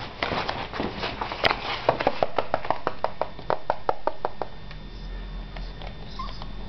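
An Old English Sheepdog puppy making a quick run of clicks and taps, settling to about four a second and stopping about four and a half seconds in.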